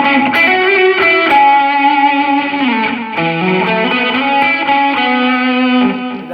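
Electric guitar with distortion through a Line 6 POD Go amp modeller, playing a slow lead lick of held, sustaining notes with its tone knob set at 1, a setting that really cuts through.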